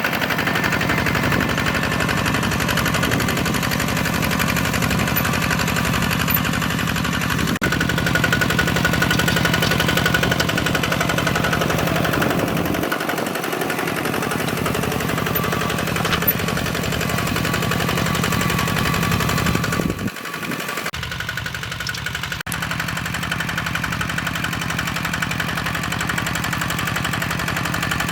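Single-cylinder diesel engine of a two-wheel hand tractor running steadily with a fast, knocking chug, dipping briefly about two-thirds of the way through.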